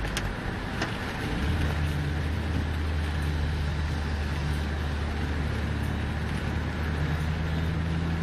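Inside a moving car on a rain-soaked road: steady road and tyre noise with the engine's drone, a low steady hum coming in about a second in.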